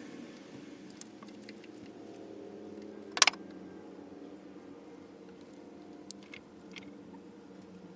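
Light metallic clinks of hand tools and parts being handled during engine work, with one louder short clatter about three seconds in, over a steady low hum.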